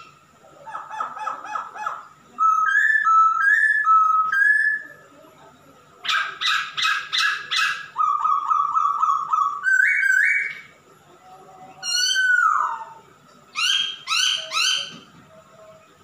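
Male masked laughingthrush (Poksay Hongkong) singing a loud, varied song. It mixes clear whistled notes with bursts of fast repeated notes and a downslurred note, with short pauses between phrases.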